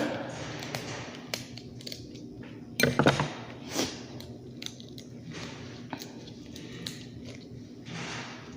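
Sounds of eating seafood: scattered clicks and cracks from pulling at shells and handling food, with a louder crunching clatter about three seconds in.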